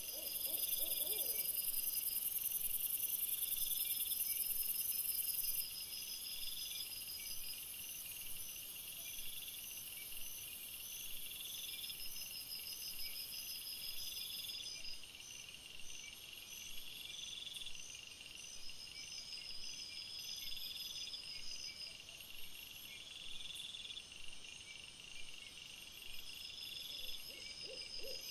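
Night insects, cricket-like, trilling in short high pulsed phrases that repeat every couple of seconds. A louder steady high hiss covers the first five seconds or so and cuts off abruptly.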